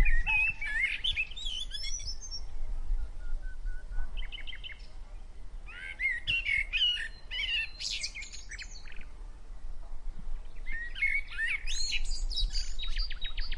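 Songbirds chirping and twittering in bursts of quick high notes and trills, with short pauses between them.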